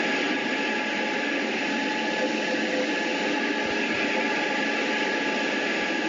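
Recorded airplane-travel cabin noise from a white-noise sleep app: a steady hiss and hum, like a fan, with a few faint steady tones running through it.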